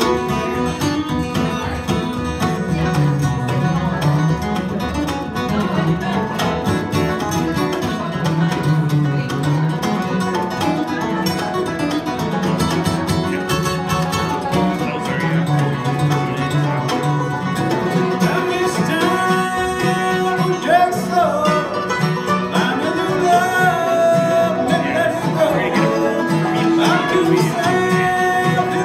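Bluegrass band playing live on acoustic instruments: flatpicked acoustic guitar, five-string banjo, mandolin and dobro. About two-thirds of the way through, a lead line of long, sliding held notes rises over the picking.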